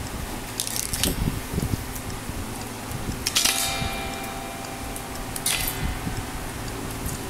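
Steady hum of an electric fan, with hands scraping and handling the metal strings of an unplugged electric guitar while restringing it. Twice, about halfway through and again a couple of seconds later, a scrape sets a string ringing faintly for about a second.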